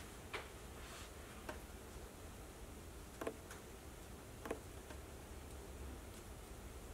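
Scattered laptop keyboard key presses, about six single clicks at irregular intervals, over a faint steady room hum.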